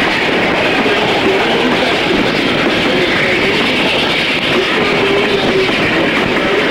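Steam excursion train running at speed, heard from an open coach window: a steady rush of wheel and track noise with wind, and faint wavering tones that come and go.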